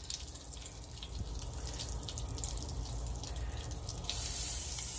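Hot oil and steak drippings crackling and spitting in a skillet. About four seconds in, a pat of butter goes in and the sizzle grows louder and fuller.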